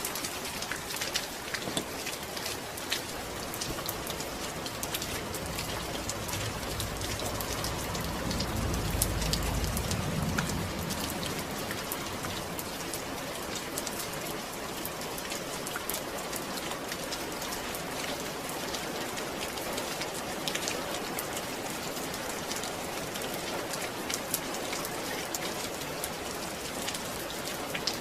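Steady rain falling, with many fine drop ticks throughout. A low rumble swells and fades under it between about four and eleven seconds in.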